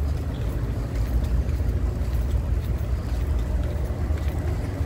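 Wind buffeting the microphone outdoors: a steady, fluttering low rumble, with a faint hum underneath.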